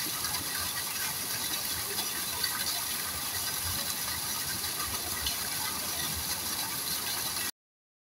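Steady water noise at a koi pond crowded with fish at the surface, with a dense fine crackle of small ticks and pops through it. It cuts off suddenly near the end.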